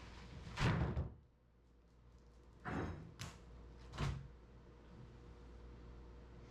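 Four separate knocks and thumps, the loudest and longest less than a second in, then three shorter ones over the next few seconds, over a faint steady hum.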